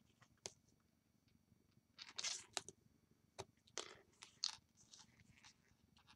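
Strong double-sided adhesive tape being pulled off its roll and pressed onto cardstock: faint, a few short crackling rips and clicks, mostly from about two seconds in.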